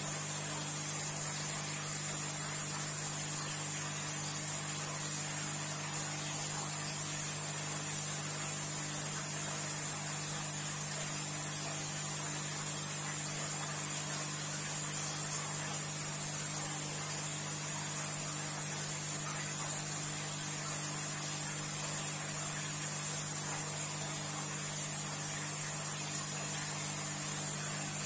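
Steady electric hum of running aquarium equipment (filter and air pump), a few low even tones with a light hiss over them, unchanging throughout.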